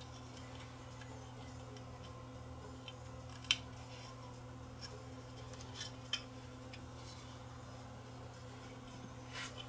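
Scattered small clicks and taps as the Fluke 12 multimeter's rotary switch is pressed back onto its circuit board by hand, the sharpest about three and a half seconds in. A faint steady low hum runs underneath.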